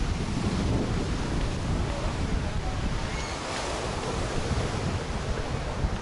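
Surf from a rough sea breaking on the shore, a steady wash of noise, with wind buffeting the microphone.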